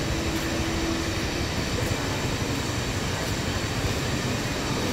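Steady rumbling background noise of a large open-sided market hall, with a brief low hum in the first second or so.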